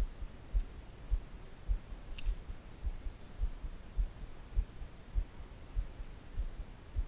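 Dull low thumps recurring very regularly, a little under twice a second, with one faint metallic click about two seconds in as fingers work a small lure onto its snap clip.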